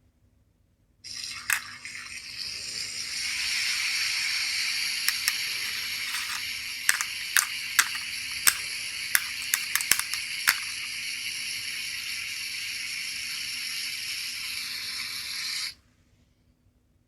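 A small sound-making capsule toy playing a recorded hissing sound like running water through its tiny speaker. It starts abruptly about a second in and cuts off abruptly near the end. About a dozen sharp clicks fall in its middle part.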